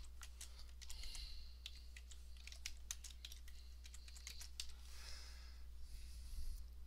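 Typing on a computer keyboard: a run of irregular key clicks over a faint steady low hum.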